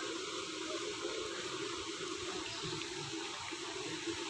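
Steady rushing of running water with a low, even hum underneath.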